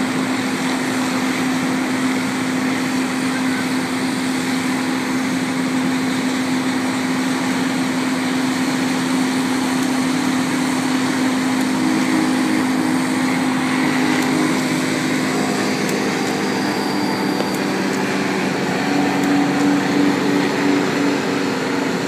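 Combine harvesters' diesel engines running steadily in a continuous drone. About halfway through, a second engine note joins, and it grows slightly louder near the end.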